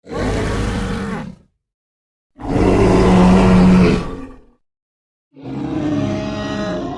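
Sound-designed Torosaurus dinosaur calls: three separate low, loud creature vocalizations with dead silence between them. The middle call, about two seconds long, is the loudest and holds a steady low tone.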